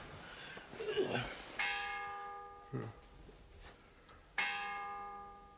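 A bell striking the hour, with slow strokes about three seconds apart, each ringing on and dying away. Between the strokes a man gives short groans as he wakes.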